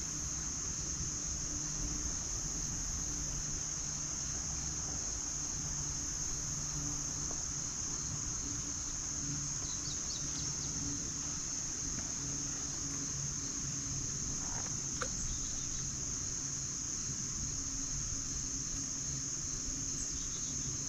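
Insect chorus: a steady high-pitched buzzing that holds unbroken throughout, over a faint low hum.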